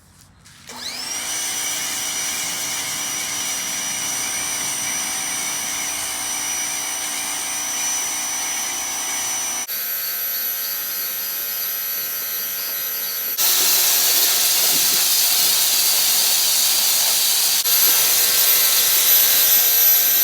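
Ryobi 1900 psi electric pressure washer whining up to speed about a second in, then running steadily with the hiss of spray through a foam cannon. Its pitch and hiss change abruptly a few times.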